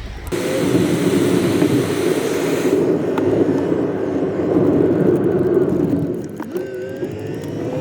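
Pickup truck on the move: a steady engine and road drone, with a faint rising whine near the end.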